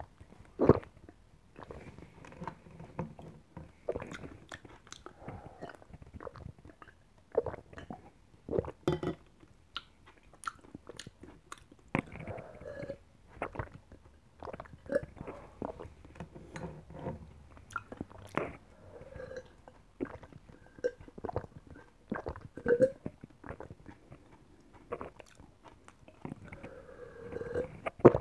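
Mouth sounds of someone drinking a basil seed drink from a glass: repeated swallowing gulps every second or two, among many short wet clicks and slurps.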